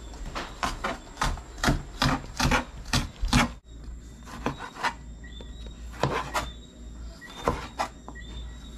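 Chef's knife chopping vegetables on a plastic cutting board: a quick run of about ten cuts in the first few seconds, then slower, scattered cuts.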